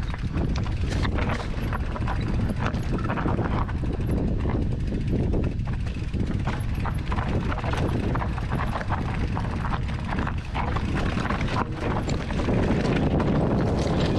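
Specialized Levo SL mountain bike descending rough, rocky singletrack: tyres crunching and clattering over loose rock, with many quick knocks and rattles from the bike. Low wind rumble on the camera microphone, growing louder near the end.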